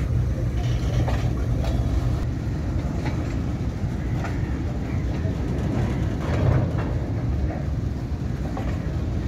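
Train moving slowly on the rails: a steady low rumble with scattered metallic clicks and clanks of wheels over the track.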